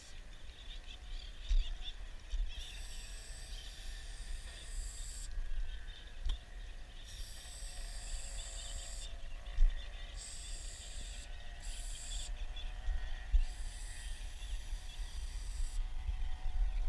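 Aerosol spray-paint can hissing in four long bursts of one to three seconds each as paint is sprayed onto a train car's side, over a low rumble.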